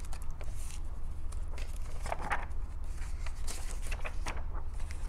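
Paper pages of a hardcover picture book rustling on and off as it is opened and turned, loudest about halfway through, over a steady low hum.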